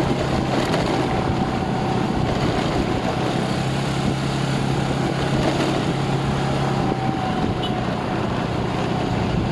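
Small motorcycle engine running at a steady cruising speed, with an even rushing noise of wind and road under it.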